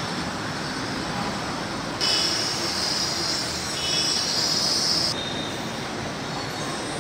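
Steady road traffic noise, with a high-pitched hiss laid over it from about two seconds in until about five seconds in.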